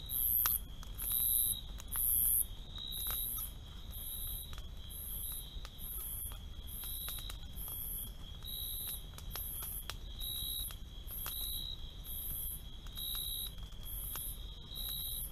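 Night insects chirping in a steady rhythm, about one and a half high chirps a second over a continuous high trill, with a wood campfire crackling and popping now and then.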